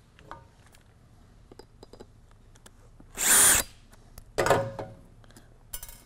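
Cordless drill running in two short bursts about a second apart, backing screws out of the end of a controller housing, amid small clicks of handling.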